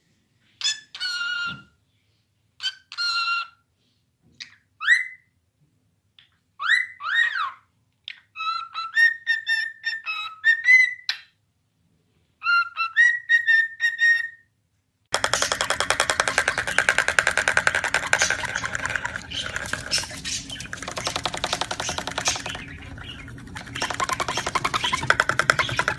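A parrot giving a series of short calls and whistles, several of them rising in pitch, with pauses between. About fifteen seconds in, this cuts suddenly to continuous music with a fast pulse.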